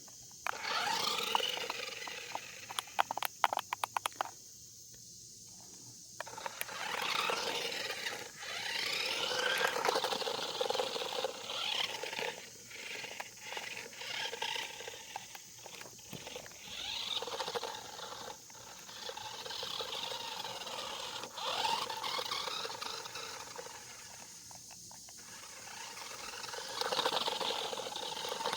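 The small electric motor of a Dollar Tree Remote Control Stunt Racer toy car whines, its pitch rising and falling as the car speeds up and slows. There is a rattle of clicks about three seconds in. The motor stops briefly a couple of times, and the owner blames this on the remote going out of range.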